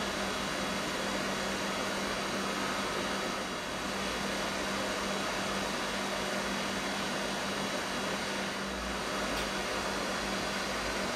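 Hot-air rework station blowing steadily: an even airflow hiss with a constant low hum from its blower.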